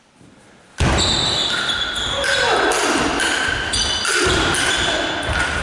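Table tennis rally: a celluloid ball struck back and forth between bats and bouncing on the table, starting suddenly about a second in, each hit a sharp ringing ping echoing in a large hall, about two hits a second.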